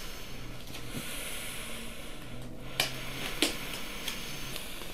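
A labouring woman's faint breathing while she rests between pushes, over a steady hiss, with two short sharp clicks about three seconds in.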